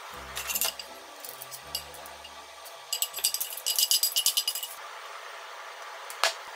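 A non-stick frying pan and wooden chopsticks clinking and tapping as fried food is lifted out onto a cutting board. A few taps come early, then a quick run of light metallic clinks in the middle, and a single clink near the end.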